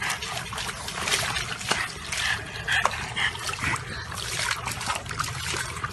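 Water splashing and sloshing in a plastic tub as a small dog sitting in it moves about, in irregular splashes, with water spilling over the rim.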